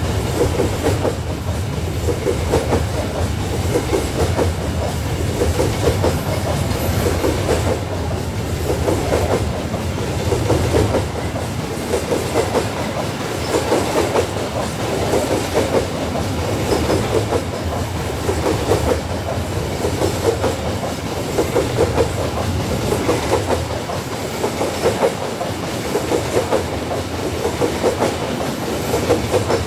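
Fully loaded coal hopper wagons of a long freight train rolling past, their wheels clacking over the rail joints in a steady, repeating clickety-clack with a low rumble underneath.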